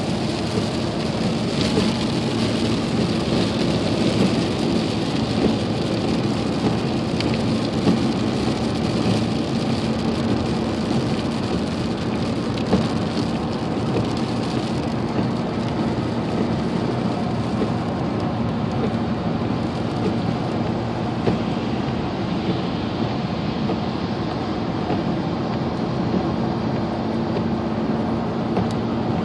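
Rain hitting a pickup truck's roof and windshield at highway speed, heard from inside the cab, over a steady hiss of tyres on wet pavement and a steady hum from the truck. The hiss gets a little less bright about halfway through.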